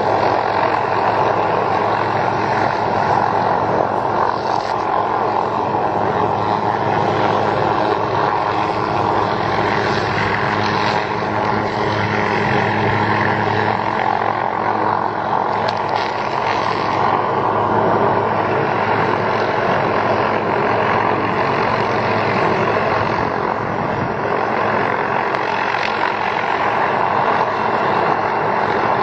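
Light helicopter hovering: steady engine and rotor noise with a thin high whine running through it.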